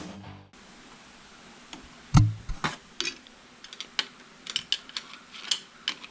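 Music ends in the first half second. Then come irregular sharp metal clicks, taps and clinks from engine parts and hand tools being handled, with one heavier knock about two seconds in.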